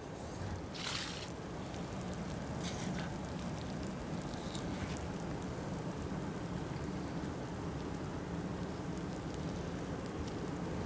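Steady soft outdoor background hiss, with a few brief rustles about a second in and again a few seconds later.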